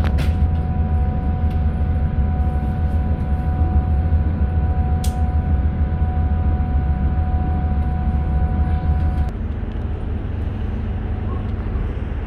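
Hunter railcar's diesel engine running steadily, heard from inside the carriage: a deep drone with a steady high whine over it. About nine seconds in the whine stops and the drone gets a little quieter.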